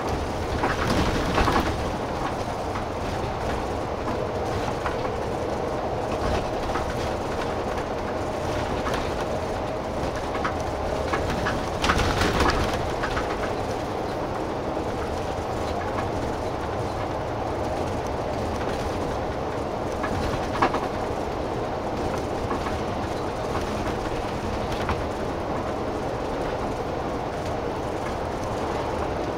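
Rail-replacement route bus driving, heard from inside the cabin: a steady drone of engine and road noise, with rattling jolts over bumps about a second in and again around twelve seconds in, and a sharp knock near twenty seconds.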